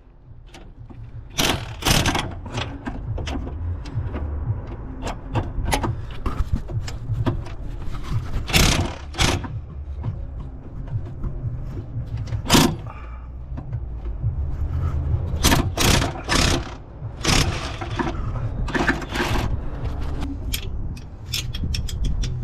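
Metal hand tools clanking and scraping against a van's gearbox and underbody during clutch replacement work: irregular sharp knocks and clinks with scraping between them.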